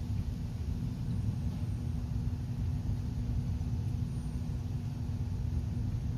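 Wind buffeting the phone's microphone, a steady low rumble that rises and falls slightly, with a faint steady hum underneath.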